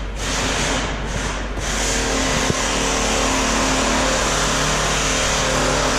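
A hand-held power tool's motor running: two short bursts, then a steady run of about five seconds with a constant hum under a loud hiss, cutting off just after the end.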